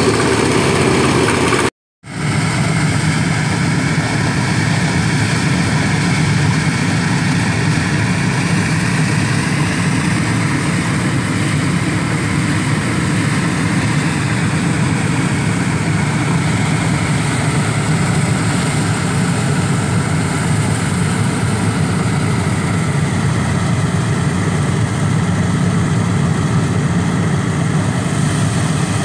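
Engine-driven rice threshing machine running steadily while sheaves are fed through it, a continuous machine noise. The sound cuts out completely for a split second about two seconds in, then resumes unchanged.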